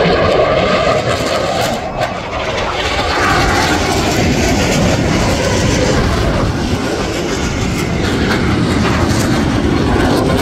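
Twin jet engines of a Blue Angels F/A-18 running at high power as it passes low and pulls up into a steep climb: a loud, continuous roar that dips briefly about two seconds in.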